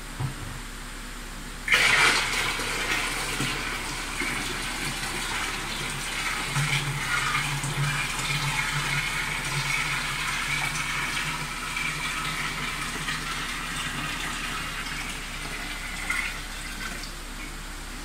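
Dissolved sugar water poured from a pot into a bucket: a steady stream of liquid splashing in, starting suddenly about two seconds in and easing off near the end.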